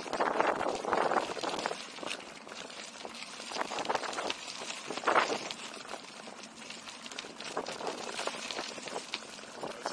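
Gravel crunching under someone moving along a dirt-and-gravel path: a continuous rough crackle full of small clicks. It is louder for the first two seconds and again briefly about five seconds in.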